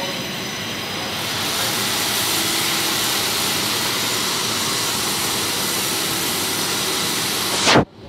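Cable stranding machine running, its rotating cages twisting copper wires into a power-cable conductor: a loud, steady mechanical noise with a strong hiss. It grows louder about a second in and cuts off abruptly near the end.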